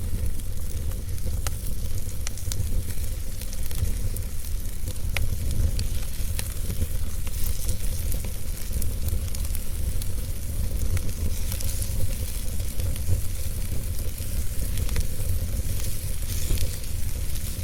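Wood fire crackling, with irregular sharp pops and snaps over a steady hiss and a low rumble.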